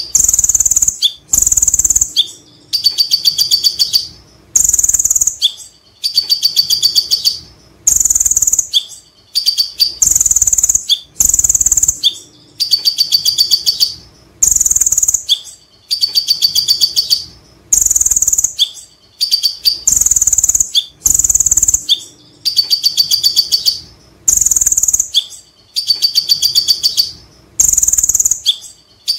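Male kolibri ninja (konin) sunbird singing in its cage. The song is one phrase repeated about every two seconds: a shrill high trill followed by a rapid string of chattering 'kek' notes, the ngekek joined to a cililin-type trill.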